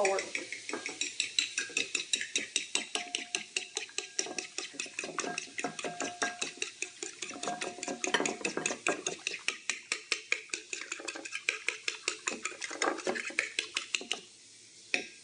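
Egg and milk being beaten in a bowl for an egg wash, the utensil clicking against the bowl about four to five times a second. The beating stops about a second before the end.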